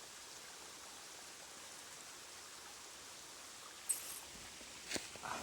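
A small stream running: a steady, faint rush of water. About four seconds in there is a brief, very high chirp, and near the end a sharp click.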